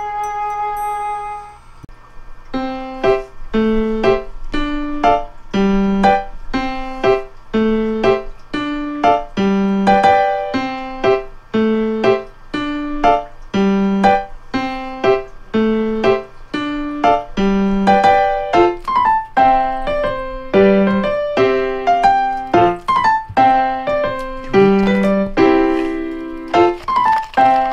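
Background piano music: after a short held tone, a light tune of short, evenly paced notes over a low note about once a second.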